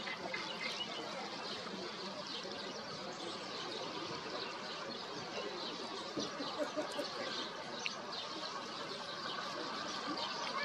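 Many small birds chirping in a dense, steady wetland chorus, short high calls overlapping throughout.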